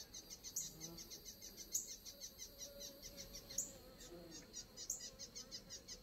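Faint insects chirping in a fast, even pulse, cricket-like, with a few short bird chirps and a brief faint hum of a honeybee in the middle.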